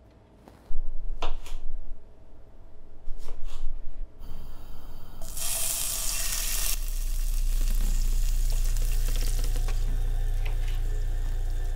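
Beef cubes frying in a hot pan: a sharp burst of loud sizzling about five seconds in as the meat goes in, settling into steady sizzling over a low hum. Louder rushing bursts come before it, in the first four seconds.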